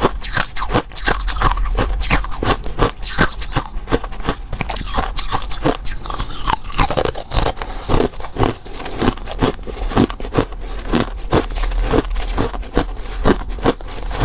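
Close-up crunching and chewing of something hard and crisp in the mouth, a steady run of crunches about three a second.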